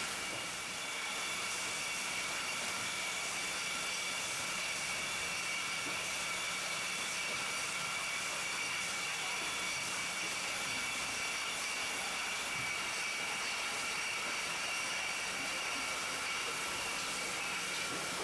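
Automatic box wine cartoning machine and packaging line running continuously: a steady mechanical hiss with two constant high-pitched tones and a low hum.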